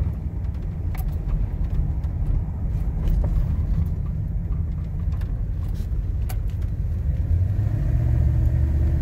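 Car engine and road noise heard from inside the cabin while driving slowly: a steady low rumble that grows a little louder near the end, with a few faint clicks.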